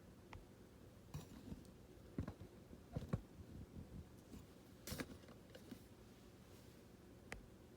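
A few scattered light clicks and knocks of things being handled, about five in all, over quiet room tone.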